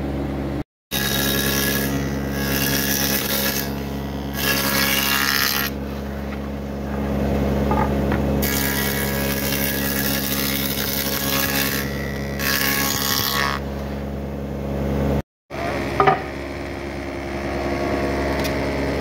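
Spindle moulder running steadily, its cutter head biting into wooden boards fed along the fence in several passes. Each pass adds a hissing cutting noise over the motor hum, and a single knock comes near the end.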